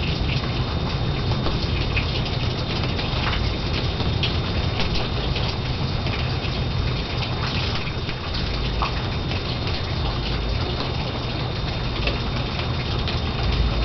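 Heavy thunderstorm rain falling steadily, a dense even patter of drops.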